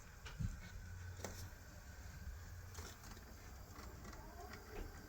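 Model diesel locomotive running down a grade on the layout: a faint, low electric-motor hum with scattered light clicks from the wheels on the track.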